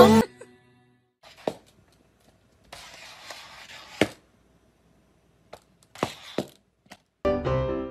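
A few soft knocks and thunks, four in all, from a cat's cone collar bumping on a tiled floor, with a faint scuffing in between. Music cuts off at the start and starts up again near the end.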